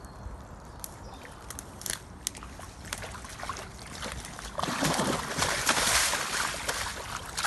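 Shallow flood water splashing and sloshing as something moves through it, with scattered small splashes at first and much louder, continuous splashing from a little past halfway.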